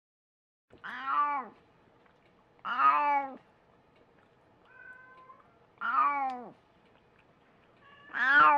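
Elderly domestic cat with dementia meowing loudly four times, about every two and a half seconds, some while after an epileptic seizure. Each meow rises and then falls in pitch, and the last is the loudest.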